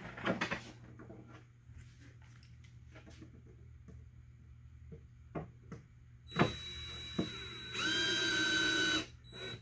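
Cordless drill driving a screw down through the 3D-printed plastic top of a bat house into the post. After a few faint handling clicks, the drill starts about six seconds in and runs steadily for about two and a half seconds, getting louder for its last second before stopping.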